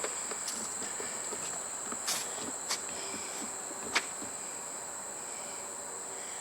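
Insects calling in one steady, unbroken high pitch, with three faint taps about two, two and a half and four seconds in.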